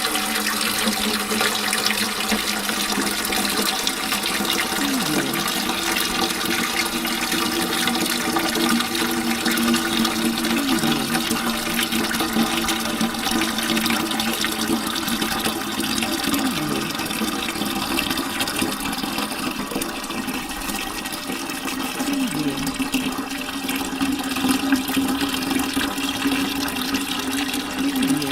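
Water pouring in a steady stream into a bucket, the splashing carrying a low ringing tone from the bucket. It gets a little louder near the end.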